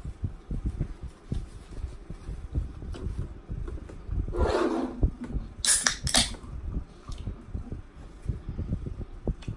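Close-miked eating: soft, irregular low thumps of chewing fried fish and handling at the table, with a short crackling rustle of a paper napkin a little past halfway.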